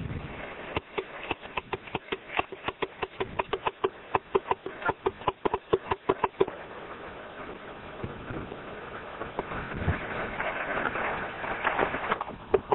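Hooves of a Curly pony pulling a two-wheeled cart, trotting on a gravel road: a quick, even clatter of hoofbeats for the first half. Then comes a louder gravel crunch that rises near the end as the pony and cart come close.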